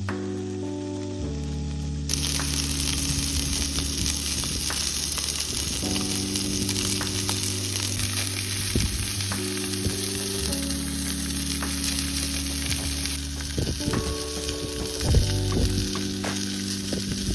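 Food sizzling and frying in a hot pan, starting suddenly about two seconds in, with a few utensil clicks and scrapes near the end as it is stirred.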